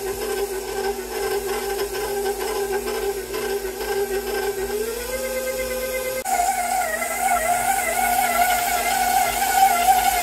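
Stand mixer motor whining steadily as its dough hook kneads a stiff flour dough in a steel bowl. The pitch creeps up a little around five seconds in, then steps abruptly to a higher, slightly louder whine about six seconds in.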